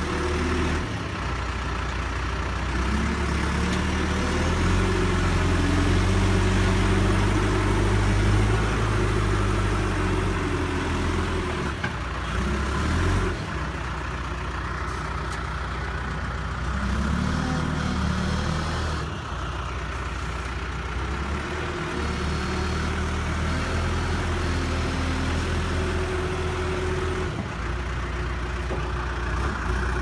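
John Deere 310J backhoe loader's diesel engine running under load, its speed rising and falling as the operator works the backhoe arm and loader bucket to push the machine out of deep mud. The engine runs harder for several seconds early on, drops briefly near the middle, then settles into a steadier pull.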